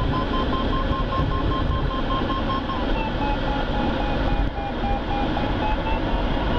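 A glider's audio variometer beeps about four times a second, the quick pitched beeps of a climb in a thermal. The pitch drops a little about three seconds in as the lift eases, then slowly rises again. Under it is the steady rush of air around the Centrair Pégase sailplane's cockpit.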